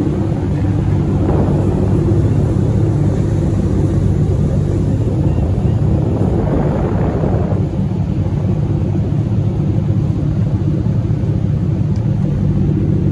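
A fishing boat's engines running steadily underway: a constant low drone with a haze of wind and water noise over it.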